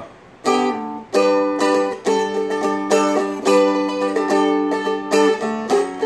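Seagull Merlin M4, a four-string fretted dulcimer tuned D-A-D, strummed in a steady rhythm of chords that ring out, starting about half a second in.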